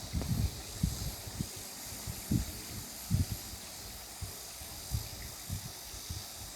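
Wind buffeting the microphone in irregular low gusts and thumps, over a steady soft hiss.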